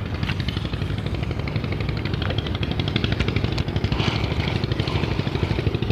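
A small engine running steadily with a rapid, even putter and a low hum.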